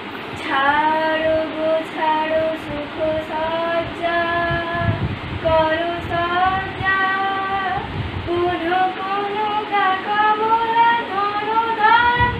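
A girl singing solo in long held notes that glide between pitches, phrase after phrase.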